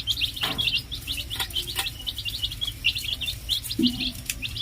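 Birds chirping continuously in rapid, high, short notes, many a second, over a steady low background rumble.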